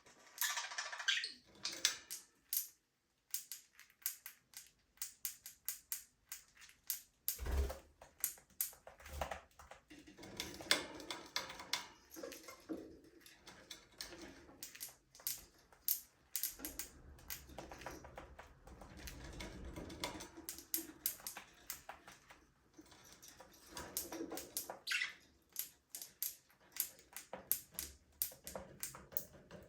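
Budgerigars in an aviary: soft intermittent chirps over many quick clicks and taps, with a single low thump about seven and a half seconds in.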